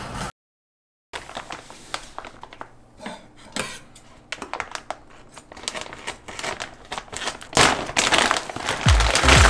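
Plastic packaging crinkling and kitchenware clinking in a run of small clicks and taps, after a moment of dead silence; louder noise and music come in near the end.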